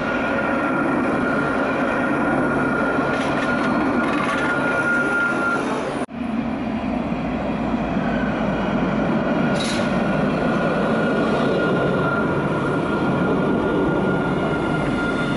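Alstom Citadis trams passing on the track: a steady rumble of wheels and motors with a high, steady whine. The sound breaks off for an instant about six seconds in, then a second tram approaches and passes close by.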